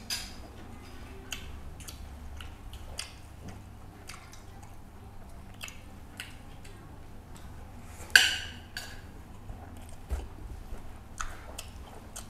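Close-up mouth sounds of a man eating rice and fish curry: irregular wet chewing clicks and lip smacks, with one much louder sharp sound about eight seconds in.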